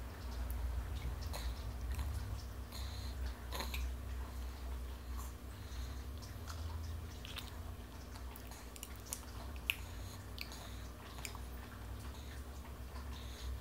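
A toddler chewing finger food, with scattered small mouth clicks and one sharper click about ten seconds in, over a low steady rumble.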